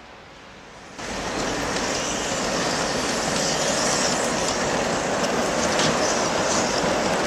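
LGB garden-scale model of a class 99 narrow-gauge steam locomotive running through snow on its track, a steady rattling running noise that starts suddenly about a second in.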